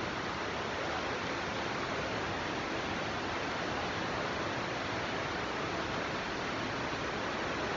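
Muddy floodwater rushing fast down a street, a steady even rush of water.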